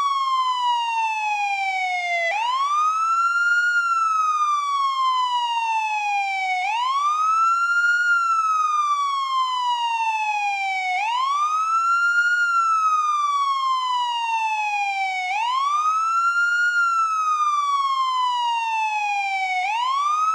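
American police car siren on the wail tone: the pitch climbs quickly, then falls more slowly, and the cycle repeats about every four seconds, at a steady level throughout.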